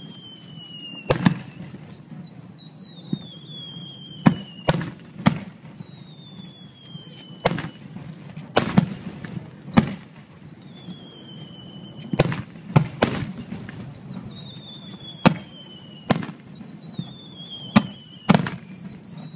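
Aerial firework shells bursting: about fifteen sharp booms at irregular intervals, some in quick pairs. Between the booms, high whistles fall slowly in pitch.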